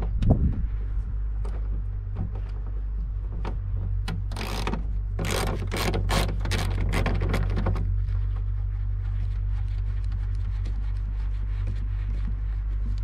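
Ratchet wrench with an 8mm socket loosening trim bolts: scattered clicks, then a quick run of ratchet clicks from about four to eight seconds in, over a steady low hum.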